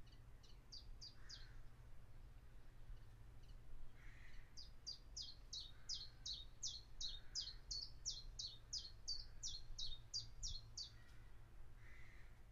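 A songbird singing runs of quick, repeated high down-slurred notes: a short run at the start, then a longer, even run of about three notes a second beginning about four seconds in. A faint steady low hum sits underneath.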